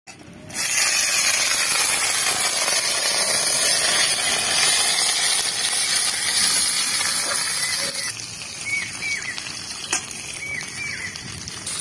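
Cut star fruit pieces tipped into hot mustard oil in an iron karahi, frying with a loud, even sizzle from about half a second in, easing slightly after about eight seconds. A spatula clicks once against the pan near the end.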